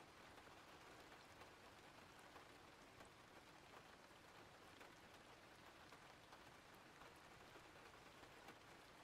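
Faint, steady rain ambience: an even hiss of rainfall with scattered light drop ticks.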